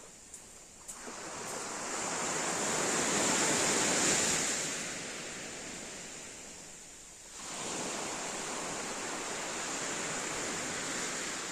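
Sea waves breaking and washing up a pebble shore, in two swells: one building to a peak about four seconds in, the next rising about seven and a half seconds in. A couple of faint clicks come in the first second.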